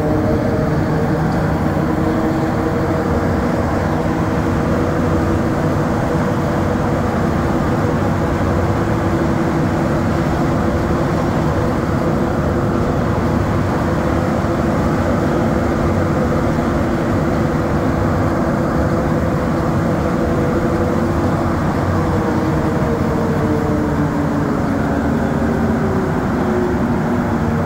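Montreal Metro AZUR rubber-tyred train running between stations, heard from inside the car: a steady rumble of tyres on the track with several humming motor tones. The tones drop in pitch near the end as the train slows.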